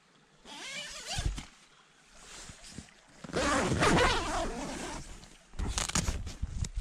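Tent door zipper being pulled open in several strokes, the longest and loudest about three seconds in. Near the end a few clicks and a low rumble come in as the door opens.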